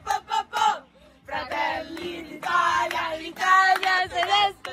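Several young women singing loudly together in a rowdy, chant-like way: a few quick syllables, then long drawn-out notes.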